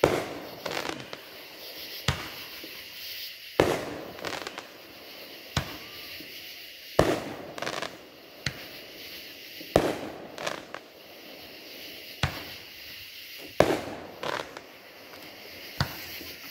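Aerial fireworks shells bursting: a string of sharp booms about every one to two seconds, each followed by a short echoing tail.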